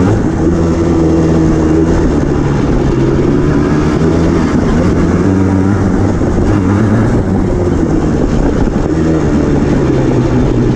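Yamaha Blaster ATV's two-stroke single-cylinder engine running under way, its pitch holding and then stepping up and down several times as the throttle is worked over the trail.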